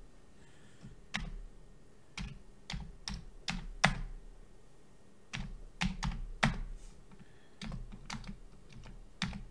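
Keys of a Commodore 64 keyboard being typed, a string of separate clacks at uneven intervals.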